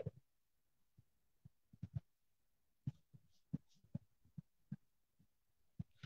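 Near silence broken by faint, irregular low thumps and knocks, a dozen or so, with no rhythm: handling noise picked up by the video-call microphone.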